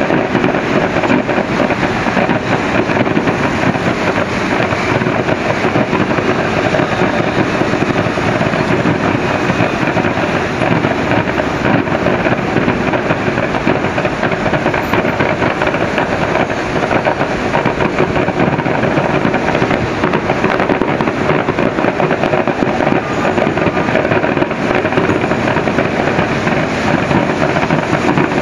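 Fireworks display heard as a loud, steady, dense crackling din, with no single bang standing out.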